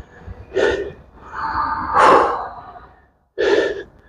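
A man breathing hard to recover after exertion: three loud, noisy breaths, the longest about two seconds in.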